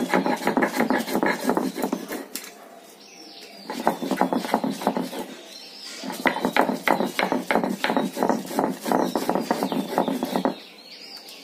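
Stone roller (nora) being worked back and forth by hand on a stone grinding slab (shil), crushing roasted whole spices and dried red chillies into a masala: a quick, rhythmic stone-on-stone grinding and scraping, with two brief pauses.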